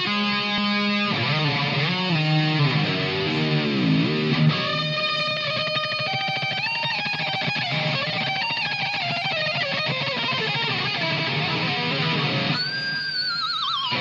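Distorted electric guitar solo on an EVH Wolfgang Special through a Blackstar ID:30 combo amp. It opens with notes that swoop down in pitch and back up, moves on to long held notes with vibrato, and near the end has a high note with wide vibrato that drops steeply in pitch.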